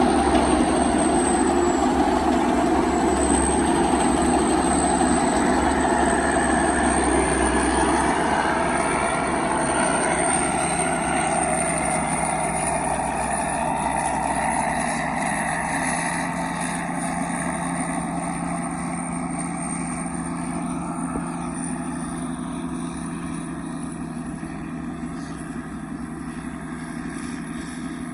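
Turbocharged 195 diesel engine of a Thai farm vehicle running steadily under load, with a thin high whine over it, growing steadily fainter as the vehicle moves away.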